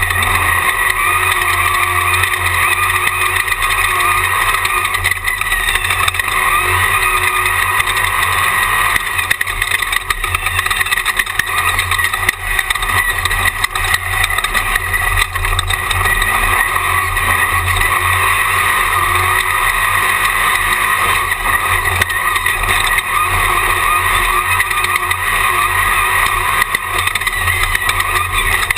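Engine of a Jimco Class 1 desert race car running loud and steady at speed, heard from an onboard camera.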